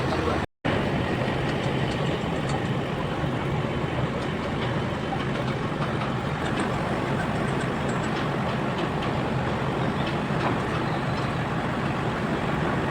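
Heavy machinery engine running steadily with a low hum, with a few faint clicks; the sound cuts out for an instant about half a second in.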